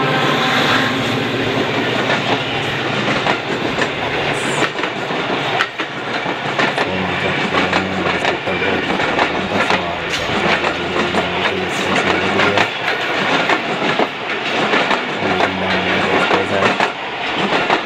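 Passenger train passing close at speed: the diesel locomotive goes by at the start, then the coaches run past with a steady rattle and a dense clatter of wheels clicking over the rail joints.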